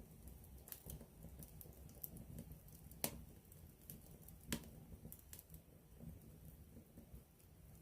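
Wood campfire crackling quietly: scattered sharp pops over a soft low rush of the flames, the two loudest pops about three seconds and four and a half seconds in.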